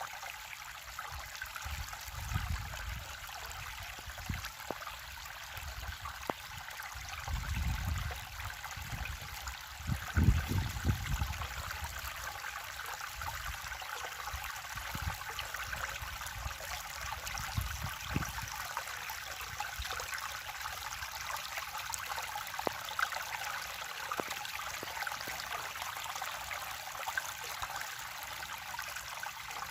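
River water flowing in a steady rush, with a few low rumbles, the loudest about ten seconds in.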